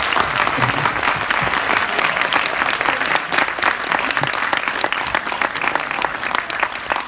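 Studio audience applauding, many hands clapping steadily together.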